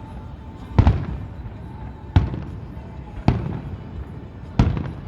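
Fireworks display: four firework shells going off over about four seconds, each a sharp boom that trails off in a low rumble.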